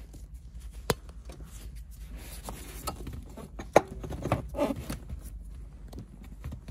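Handling noise from gloved hands working shifter cables and a metal bracket in a car's centre console: scattered clicks and knocks, the sharpest near four seconds in, with light rustling.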